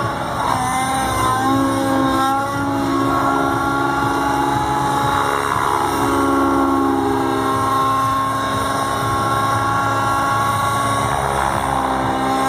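Nitro engine and rotors of a Raptor G4 radio-controlled helicopter whining loudly during aerobatic flight, the pitch stepping up and down as it manoeuvres.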